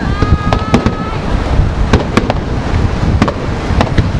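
Fireworks display: aerial shells bursting in quick succession, a dozen or so sharp bangs over a continuous low rumble of further bursts.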